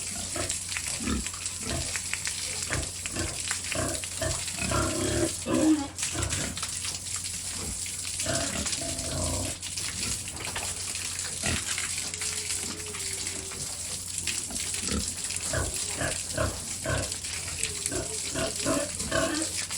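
Several pigs grunting in short, irregular grunts, one after another.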